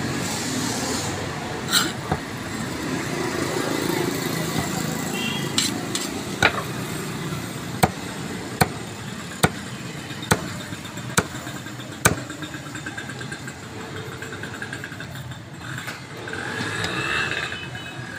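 Large knife chopping through a silver carp into a wooden chopping block: a run of sharp knocks, a little under one a second, over a steady background noise.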